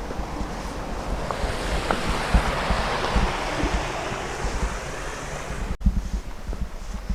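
Rushing river water, swelling in the middle, with wind buffeting the microphone in low rumbling gusts; the sound breaks off abruptly about six seconds in.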